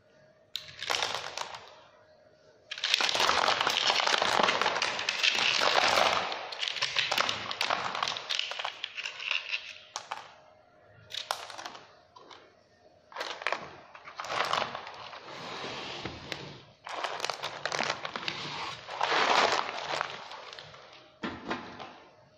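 Small stones rattling and clattering as they pour out of a bait-boat hopper into a plastic crate and are handled. The sound comes in irregular noisy bursts, the longest lasting several seconds.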